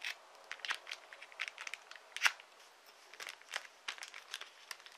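Clear plastic packaging crackling and crinkling in the hands, a scattered series of short, sharp crackles as the sticker seals on it are picked at and torn open, one louder snap a little past two seconds in.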